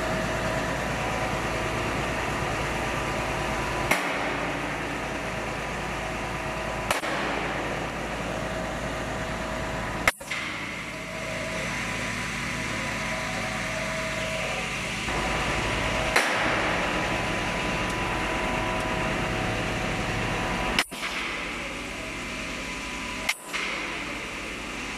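Steady hum of machinery during contact wire replacement on a rigid overhead conductor rail, with six sharp knocks spread a few seconds apart. The sound breaks off abruptly right after several of them.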